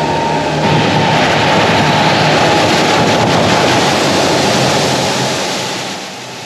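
Isuzu NPS 4x4 truck driving through floodwater on the road: a loud, steady rush of spray thrown up by the wheels, with the engine running underneath and wind on the microphone. It eases off near the end.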